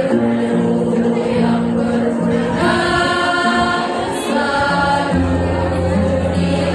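Girls' choir singing together in long held notes. A low steady note comes in about five seconds in.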